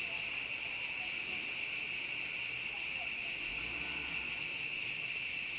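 Crickets chirping in a steady, continuous high-pitched night chorus.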